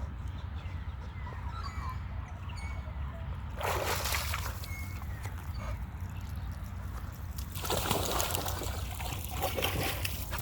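Splashing through shallow water in two bursts: a short one about four seconds in and a longer one from about seven and a half seconds until just before the end.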